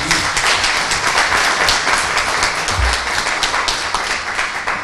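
Audience applauding: many hands clapping in a dense, steady patter that dies away at the very end.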